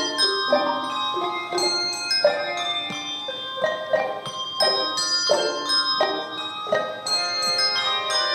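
A handbell choir playing a piece: chords and melody notes struck every half second or so, each bell ringing on with shimmering overtones.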